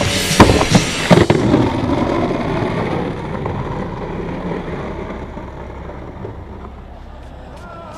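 Skateboard landing a trick on asphalt: several sharp slaps of the deck and wheels hitting the ground in the first second and a half. Then the wheels roll over rough asphalt, the rumble slowly fading as the board moves away.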